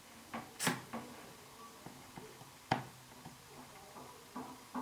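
Small clicks and taps from hand-soldering surface-mount parts on a circuit board, with a brief hiss about half a second in and one sharp click near the middle.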